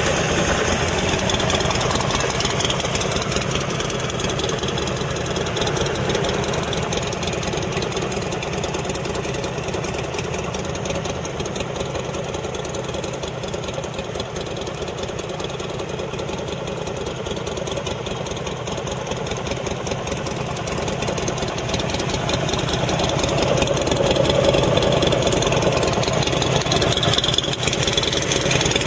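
Buell XB12SS Lightning's 1203 cc air-cooled V-twin engine running steadily at low revs. It gets somewhat quieter in the middle and louder again near the end.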